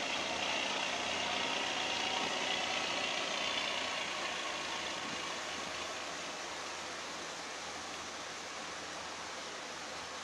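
A fishing boat's engine running and its wake churning the water as the boat heads away, a steady rush that slowly fades.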